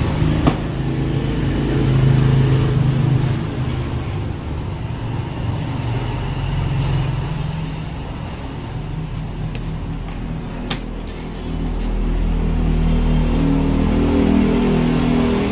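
A motor engine running with a low, steady hum, growing louder about twelve seconds in.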